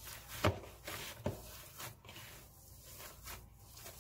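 A hand kneading mashed boiled potato and cooked semolina in a bowl: soft squishing and rubbing of the dough, with two short knocks against the bowl in the first second and a half.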